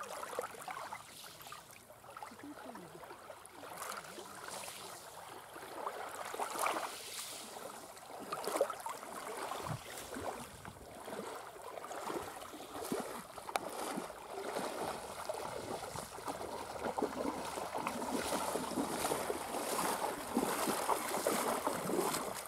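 Shallow seawater splashing and sloshing around wading legs, with small waves lapping. The splashing is irregular and grows louder over the second half as the wader comes close.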